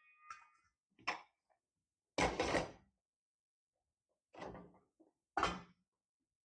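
Kitchen cupboard and pan-lid clatter while a lid is picked out for a frying pan: four separate knocks and clanks, the loudest and longest about two seconds in.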